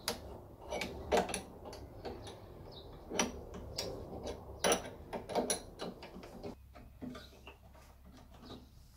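Open-ended spanner turning the nut of a wheel-cylinder clip fitting tool on a Classic Mini rear brake backplate: irregular metal clicks and knocks as the spanner is worked and repositioned, thinning out after about six seconds.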